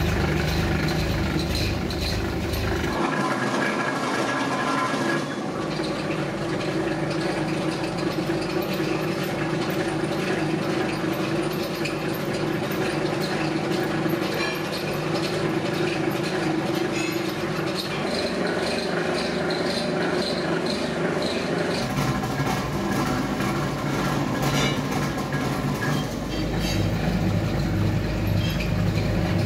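Rubber mixing mill running with steel rollers working silicone rubber compound: a steady mechanical clatter and rattle of the drive and rollers. The noise changes abruptly a few times.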